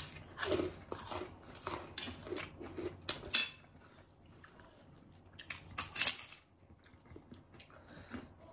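Crisp crunching of kerupuk crackers and rujak being bitten and chewed close to the microphone: a quick run of crunchy bites in the first three seconds or so, then softer chewing, with two louder crunches about six seconds in.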